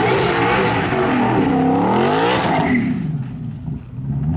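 Racing car engine revving hard under acceleration, its pitch climbing, then dropping and fading away about two and a half seconds in. A lower, steadier engine note follows near the end.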